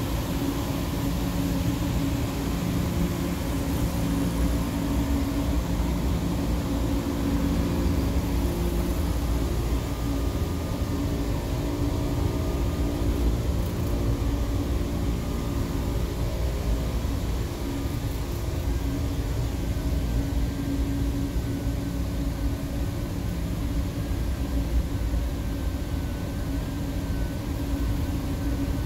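Steady hum of mechanical-room equipment running, several steady tones over a low rumble.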